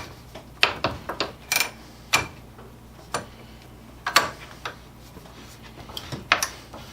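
Hand-cranked drill working through a metal plate: irregular sharp metallic clicks and knocks from its gearing, spaced from a fraction of a second to about a second apart, the loudest about four seconds in and near the end.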